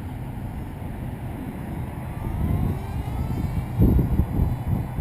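Small foam RC delta plane's electric motor and propeller whining as it makes a low, slow pass, the pitch sliding as it goes by, about two seconds in. Wind buffets the microphone throughout, loudest near the end.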